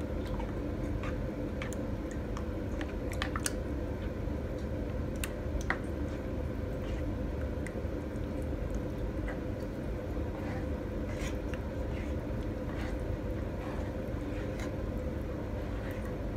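Thick béchamel sauce with eggs being stirred in a pan, wet squelching with scattered light clicks of the utensil against the pan, over a steady low hum.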